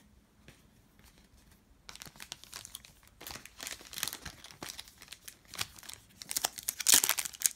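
Foil wrapper of a trading card pack crinkling and tearing as it is opened, starting about two seconds in and getting louder near the end.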